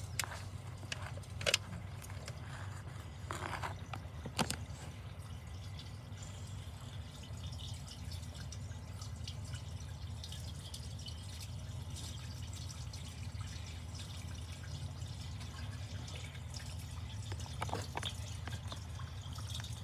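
Water running and dripping inside an in-ground drain pipe: a light trickle over a steady low rumble. Two short, sharp sounds stand out in the first five seconds.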